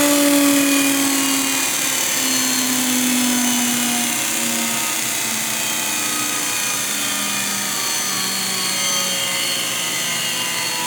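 Myford MG-12M grinder switched off and coasting down. Its spindle and motor whine falls slowly and steadily in pitch as it spins down.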